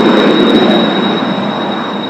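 Kawasaki T-4 jet trainer's twin turbofan engines, loud and close, with a steady high whine over the jet noise. It is loudest about half a second in, then slowly fades as the jet moves past.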